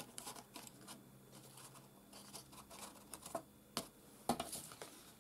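Faint rustling and scratching of hands handling cardstock and a small paper leaf, with a couple of sharper light taps in the second half.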